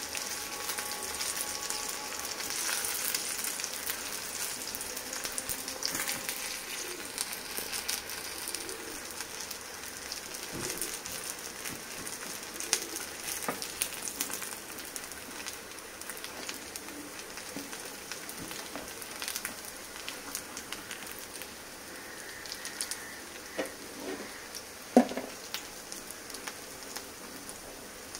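Semolina and vegetable patties shallow-frying in hot oil in a nonstick pan: a steady crackling sizzle that eases somewhat in the later part. Scattered light taps as the patties are pressed and turned, with one sharper knock near the end.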